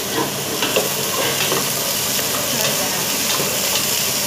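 Diced carrots and sweet potato sizzling in oil in a stainless steel pot while a wooden spatula stirs them, scraping and knocking against the pot now and then.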